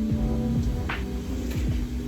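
Background music with sustained low notes and a soft percussive hit about a second in.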